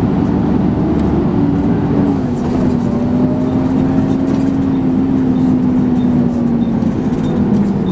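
Volvo B10BLE bus engine and ZF automatic gearbox running under way, with a steady droning whine that bus enthusiasts call 'hoovering'. The whine's pitch shifts about a second and a half in, then falls slowly.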